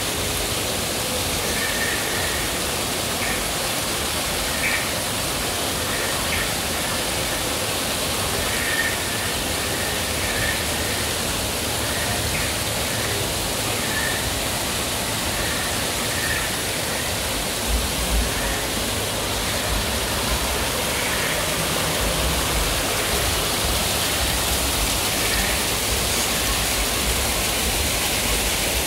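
Steady rush of falling water, like a waterfall, as an even hiss. Faint short chirps repeat through the first half, and a low rumble joins about halfway through.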